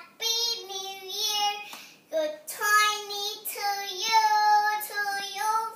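A young girl singing a Christmas song alone, with no accompaniment, in phrases of held notes and a short break about two seconds in.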